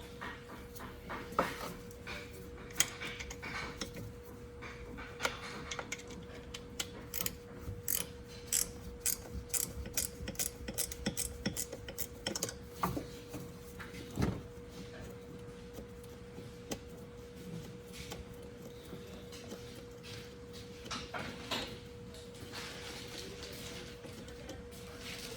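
Hand ratchet clicking in quick runs, with scattered clinks and knocks of tools. A faint steady hum sits underneath.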